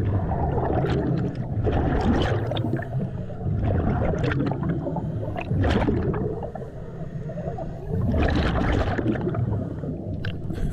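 Underwater camera sound of divers breathing through hookah regulators: exhaled bubbles gurgling and rushing, with a muffled low rumble of water and scattered crackling pops. It eases off for a moment a little past the middle, then picks up again.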